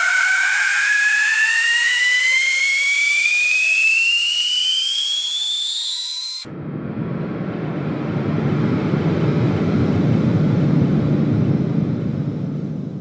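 Airplane jet engine: a high whine climbing steadily in pitch, cut off suddenly about six and a half seconds in by a deep, steady rumble that fades near the end.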